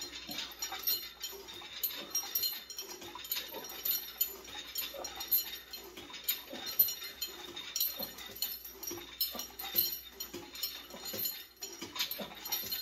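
Repeated lat pulldowns on a home-gym cable machine: the weight stack lifting and settling and the triangle bar's chain clinking, in irregular short clicks. Short pitched sounds are scattered among them.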